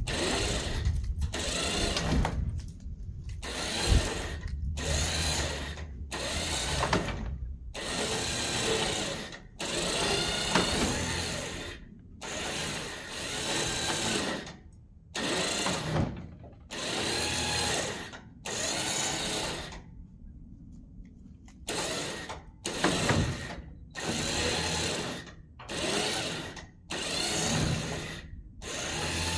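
A power tool run in repeated bursts of one to two seconds, stopping and starting again with short pauses between.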